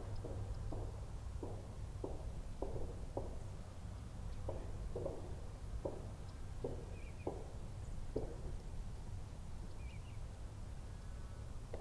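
Irregular soft taps, about one or two a second, over a steady low rumble, with two faint bird chirps, one midway and one near the end.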